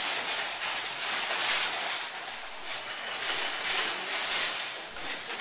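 Loud rushing hiss that swells and fades several times, like surf.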